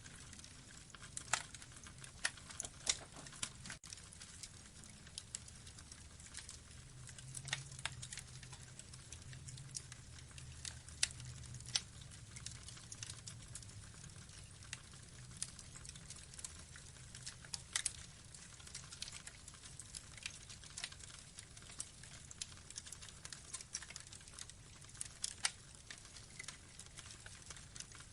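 Burning wood logs crackling: irregular sharp pops and snaps, a few of them louder, over a soft steady hiss and a low rumble of the flames.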